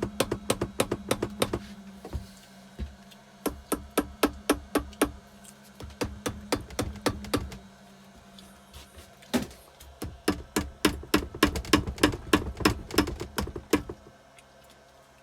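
Hand-tool work on a motorcycle engine to free a stuck part. There are runs of rapid, sharp clicks, about five a second, in four bursts with short pauses between them, over a low steady hum in the first half.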